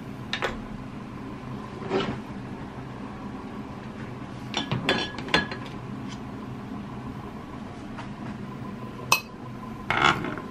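Metal spoons and cookware clinking: single knocks now and then, a quick run of clinks about five seconds in, a sharp one near the end, and more clinking as a spoon goes into the pan of simmering sauce.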